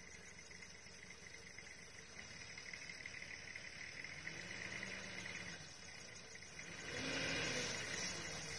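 Engine of a 4x4 truck working slowly along a muddy track at a distance, its pitch rising and falling, growing louder about seven seconds in. A steady insect drone runs underneath.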